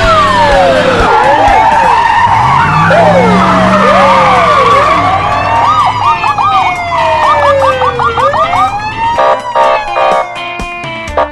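Several overlapping emergency-vehicle sirens wailing, switching to a rapid yelp about six seconds in, over the sound of car engines. Background music comes in about nine seconds in.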